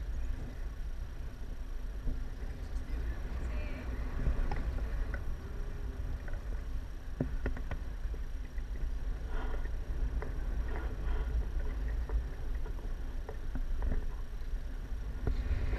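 Wind rushing over the microphone of a camera on a tandem paraglider in flight: a steady low rumble with a few faint clicks.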